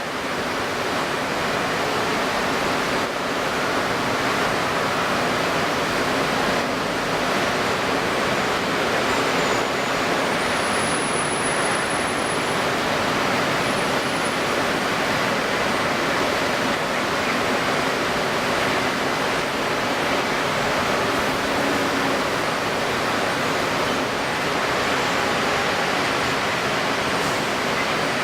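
Steady rush of strong wind over choppy open water, fading in at the start.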